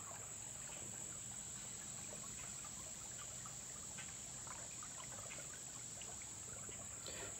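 Steady high-pitched chorus of insects, with faint trickling of shallow creek water.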